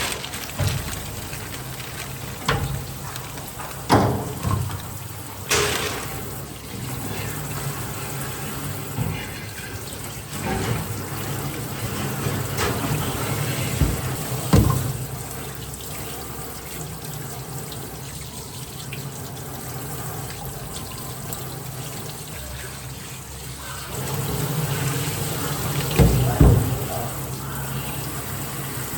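Steady running water, with a few sharp knocks and clatters scattered through it.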